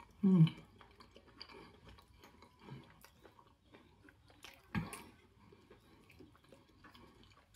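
Close-up mouth sounds of a person chewing soft steamed fish: small wet clicks and smacks of chewing, with a short falling hum just after the start and one sharp tap about five seconds in.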